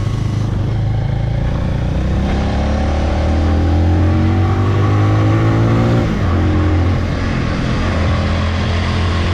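Motorcycle engine running under way, its pitch climbing gradually as it speeds up, then dropping abruptly about six seconds in and holding steady after.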